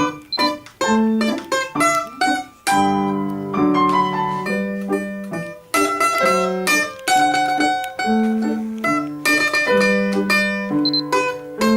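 Domra playing a quick melody of plucked notes, accompanied by piano.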